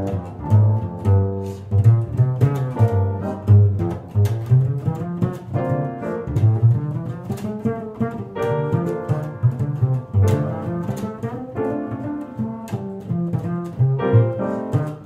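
Kolstein travel upright bass played pizzicato: a continuous line of plucked notes, roughly two a second, with a deep, full low end, heard through its installed Planet Wing pickup.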